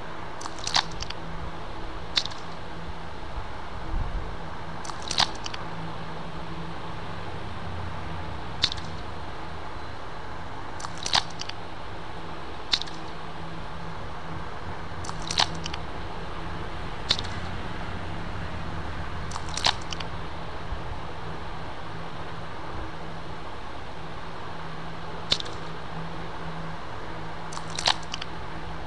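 Tweezers plucking sound effect: about a dozen short, sharp clicks, one every one to three seconds, as lumps are picked out of a wound. Behind them runs a steady hiss with a low hum.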